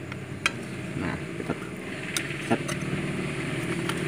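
Plastic and metal parts of a sewing-machine foot pedal clicking and knocking as its cover is pressed onto the base, about six sharp clicks. Under them runs a steady low mechanical hum.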